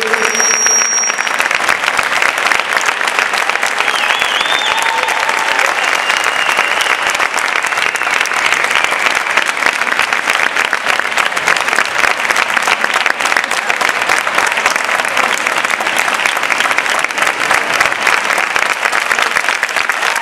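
Audience applauding steadily, with a few short high calls about four to seven seconds in.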